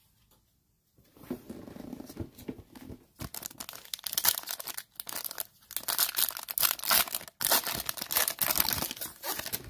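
Foil wrapper of a trading card pack being torn open and crinkled by hand, a dense crackle of short tearing and crinkling snaps. It starts about a second in and grows louder from about four seconds in.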